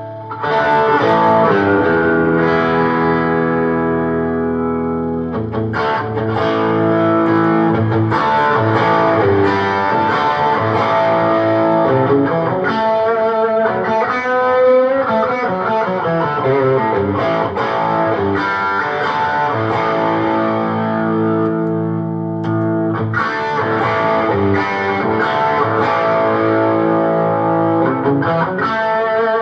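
Telecaster electric guitar played through a pedalboard into a Fender Deluxe Reverb 1965 Reissue tube combo amp turned up to about 6–7. It opens with one long ringing chord, then moves to busier chords and single-note lines.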